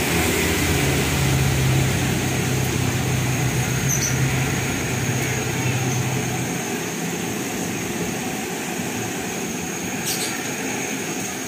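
Steady rushing of a stove burner under a large pot of sugar syrup that is heating but not yet boiling, with a low engine-like hum that fades out about six seconds in.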